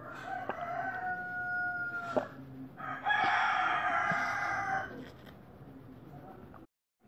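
Two long, drawn-out animal calls: the first steady and even for about two seconds, the second, about three seconds in, louder and harsher.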